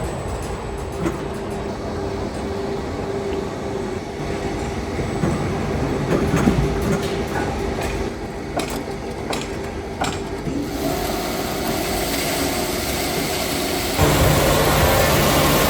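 Heavy sawmill machinery running with a steady hum, a few sharp metallic knocks partway through, and a sudden jump to a louder machine noise near the end.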